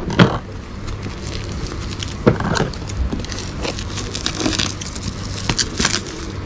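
Scissors cutting into a taped parcel wrapped in black plastic: irregular snips with the plastic crinkling and rustling.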